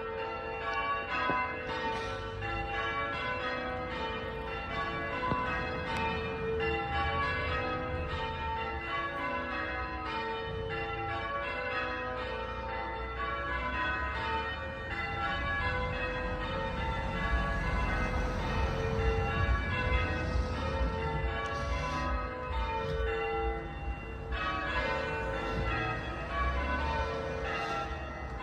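The front five of a ring of eight church bells, cast by Taylor's of Loughborough in 1920, ringing changes. The bells strike one after another in a continuous, even pattern, their tones overlapping as each rings on.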